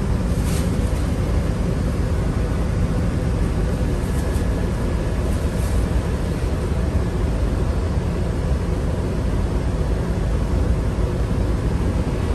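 A steady low rumble with a fainter hiss above it, even and unbroken throughout.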